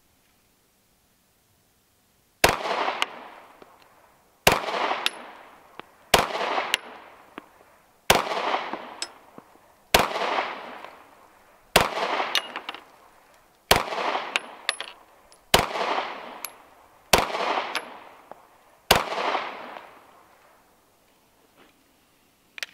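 CZ P10 C 9mm pistol fired ten times in slow, deliberate succession, about two seconds between shots. Each shot is followed by an echo that dies away over about a second and a half.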